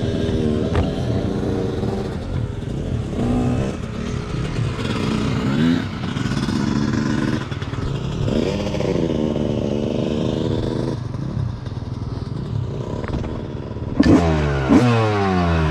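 1995 Honda CR250's single-cylinder two-stroke engine running and being revved, its pitch rising and falling again and again, with a louder burst of quick revs near the end.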